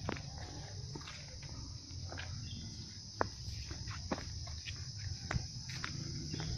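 Steady high-pitched insect chorus of crickets, with scattered sharp clicks and light knocks and a low rumble underneath.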